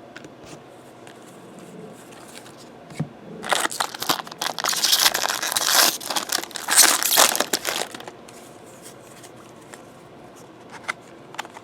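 Plastic packaging crinkling and tearing as it is handled, a dense crackly run lasting about four and a half seconds in the middle, with quiet room tone around it.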